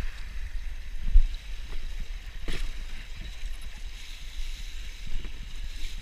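Water rushing and splashing past the hulls of a Dart 18 catamaran under sail, with wind rumbling on the microphone. A low thump about a second in and a short sharp knock a moment later.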